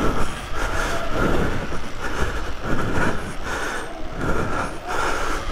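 Electric off-road motorbike's motor whining in repeated surges as the throttle comes on and off, about once a second, over the steady rumble and rattle of the bike running across a dirt track.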